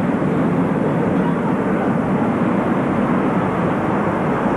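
Jet airliner engines running at an airfield: a steady, unchanging rumble with no rise or fall.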